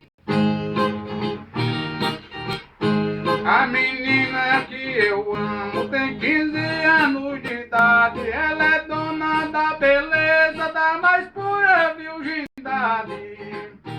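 Brazilian viola strummed in a steady rhythm under a male voice singing a sliding, drawn-out melody.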